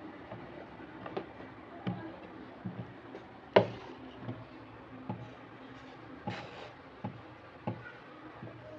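Irregular light knocks and taps, roughly one every second, with one sharp, louder click about three and a half seconds in, over a faint steady hum.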